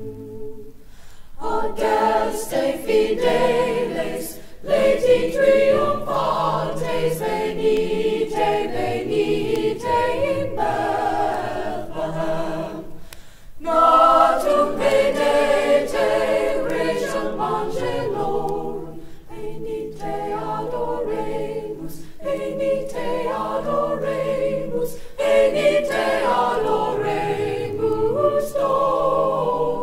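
Mixed-voice choir of sopranos, altos, tenors and basses singing unaccompanied in parts, in phrases separated by short breaks.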